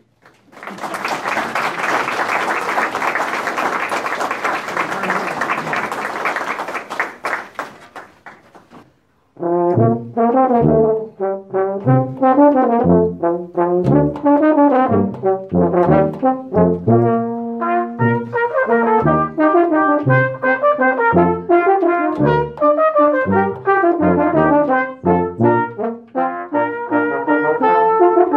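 Audience applause for about eight seconds, thinning out toward the end. After a brief silence, a brass ensemble starts a new piece in short, detached notes over a low bass line.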